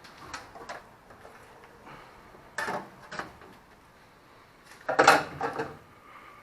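Metal tools and car parts clinking and clattering as they are handled: a few separate clanks, with the loudest cluster about five seconds in.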